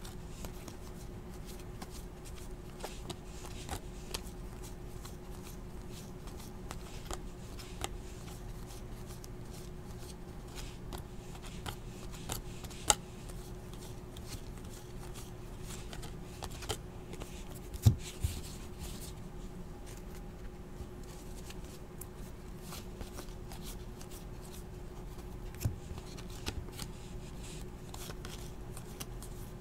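Basketball trading cards being handled and sorted: soft rustling and flicking of card stock, with scattered light taps and a few sharper clicks, over a steady low hum.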